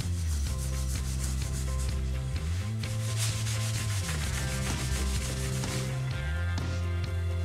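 A cloth rubbing Briwax paste wax into a scratch on a wooden floor in repeated back-and-forth strokes, heaviest midway through. Background music with a steady low bass line runs underneath.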